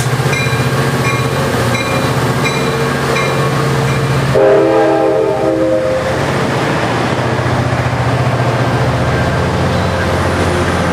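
EMD F59PHI diesel locomotive departing, its bell ringing about once every 0.7 s until about three seconds in, then one short horn blast of about a second and a half, several notes sounding together. The diesel engine's steady rumble and the bilevel passenger cars rolling past run underneath.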